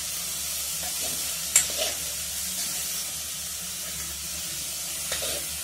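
Metal spatula stirring chopped green sorrel leaves and soaked chana dal in a metal pot, over a steady sizzle of frying in oil. One sharp knock of the spatula on the pot comes about a second and a half in.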